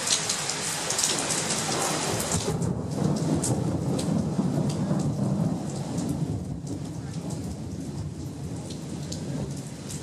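Heavy rain pattering down, with a roll of thunder rumbling in about two and a half seconds in and fading away after about six seconds.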